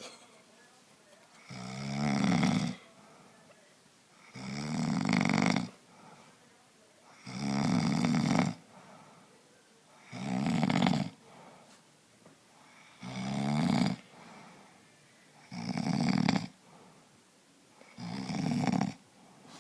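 A man snoring in his sleep: seven snores, one about every three seconds, each lasting a second or so.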